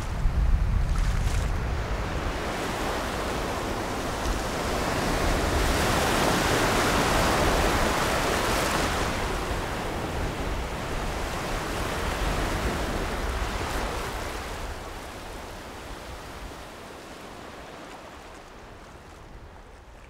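Gulf of Mexico surf washing onto a sandy beach, a steady rush of breaking waves that swells a little way in and then fades out toward the end.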